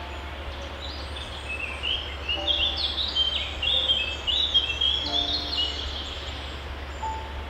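Songbirds chirping and twittering, with a thick run of quick, high chirps through the middle, over a steady background hiss.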